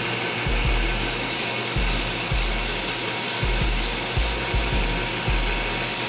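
Belt grinder running with a wooden knife handle held against the sanding belt, rounding its edges: a steady rasping sanding noise whose tone shifts twice as the piece is worked back and forth.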